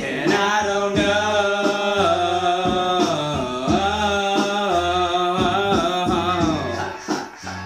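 A man singing a long, drawn-out melodic line with wavering, gliding pitch over a backing beat with a repeating bass note; the voice fades out about seven seconds in, leaving the beat.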